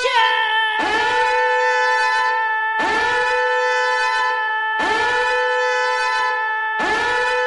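Horn-style alarm tone: a loud, buzzy held blast that restarts about every two seconds, four times, each blast sliding up in pitch at its start and then holding steady.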